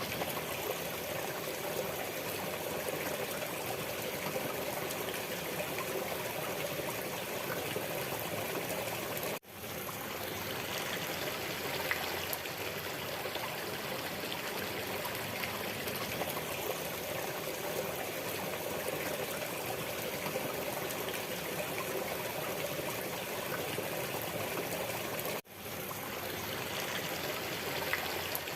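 Waterfall: steady, even rushing and splashing of falling water. It cuts out abruptly twice, about nine seconds in and again about twenty-five seconds in, and fades straight back in each time.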